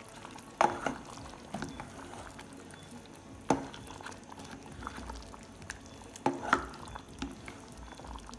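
A plastic spoon stirring chicken pieces through a thick, simmering sauce in a saucepan, with wet stirring sounds and a few sharp knocks of the spoon against the pan.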